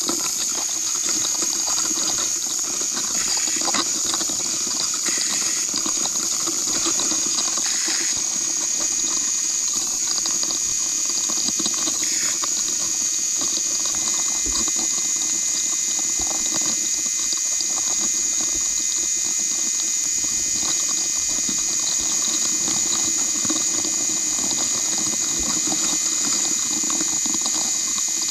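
Steady muffled underwater noise picked up by a GoPro in its waterproof housing, sunk in a crab pot on the seabed: an even water hiss with a steady high whine, and a few faint knocks in the first dozen seconds.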